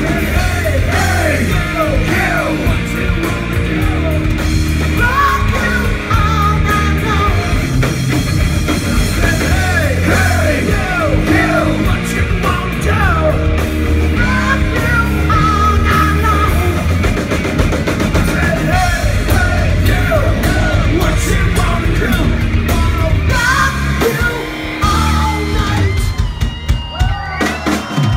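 Live rock band playing loud: electric guitar, bass guitar and drum kit under a man singing. The bass and drums drop out for a moment near the end.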